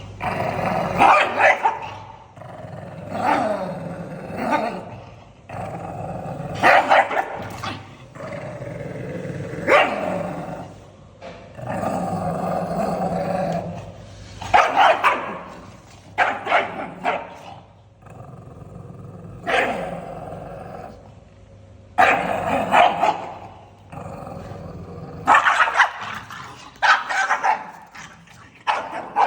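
Pug barking and growling angrily, sharp barks in clusters broken by longer drawn-out growls.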